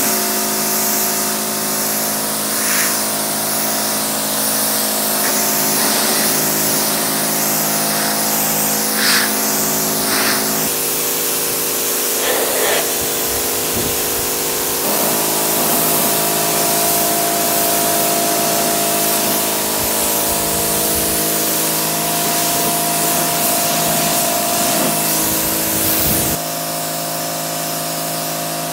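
Pressure washer spraying a jet of water onto a minivan's paint and glass: a loud, steady hiss of spray over the steady hum of the washer's motor and pump, easing slightly near the end.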